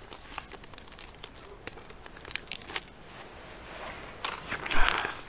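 Crinkling and rustling of a foil MRE food pouch being handled and opened, with scattered small ticks and louder rustling near the end.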